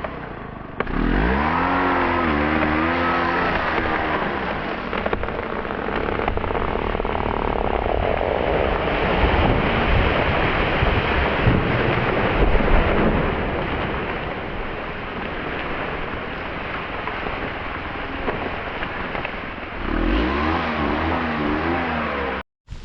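Stihl MS 500i two-stroke chainsaw running at high revs while cutting dead oak. The engine pitch swings up and down about a second in and again near the end, with steady running in between. The sound cuts off abruptly just before the end.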